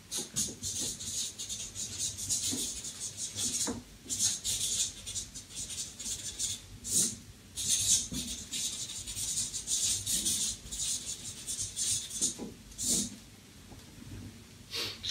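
Irregular rustling and scraping noises, a quick run of short hissy strokes with brief pauses.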